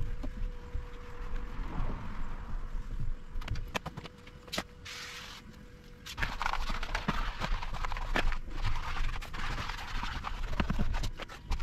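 Hands at work cleaning a car interior: irregular knocks and clicks, a short hiss about halfway through, then a longer stretch of scrubbing or rubbing noise.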